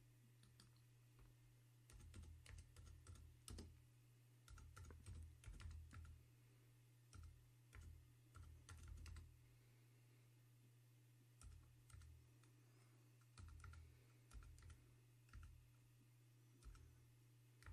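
Faint keystrokes on a computer keyboard, typed in short irregular bursts with a pause of about two seconds near the middle, over a steady low hum.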